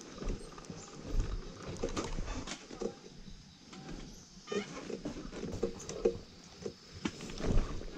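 Motorcycle rolling slowly down a steep rocky dirt track: irregular crunching and knocking of the tyres and suspension over loose stones and gravel, with a low rumble underneath.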